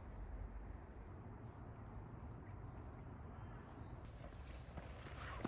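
Faint, steady high-pitched trilling of crickets, several insects singing together, with a higher trill dropping out about a second in.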